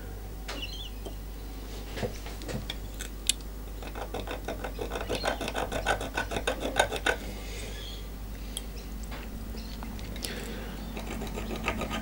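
A scriber scratching a marking line on a 6 mm metal plate: a rapid run of fine scraping ticks for about three seconds in the middle, with a few light taps of handling before it.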